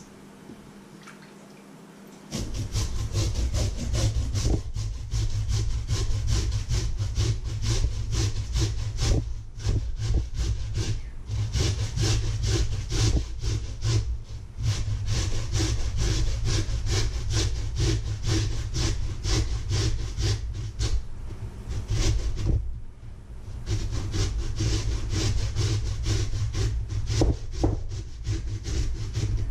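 Peeled potatoes being grated on a flat handheld metal grater propped in a steel bowl: quick, steady rasping strokes that begin about two seconds in, with a short pause about three-quarters of the way through.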